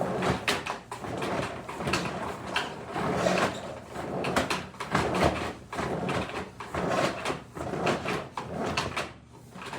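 Motorized drain-cleaning machine feeding its cable down a main sewer line to clear a clog: a steady motor hum under irregular rattling and scraping from the spinning cable.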